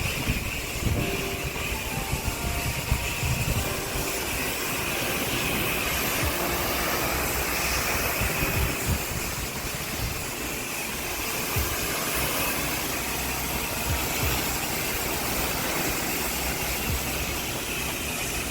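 Pressure washer running: the steady hiss of the water jet with the pump engine going underneath, and a few irregular low knocks.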